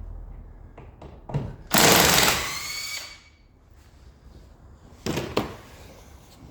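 Power drill run in a short burst, its whine rising as it spins up, drilling out snapped split pins in the track rod ends; a second, shorter burst follows near the end.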